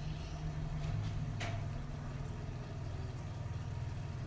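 Food sizzling in pans on a gas stove: a light steady hiss over a steady low hum, with two sharp pops about a second in.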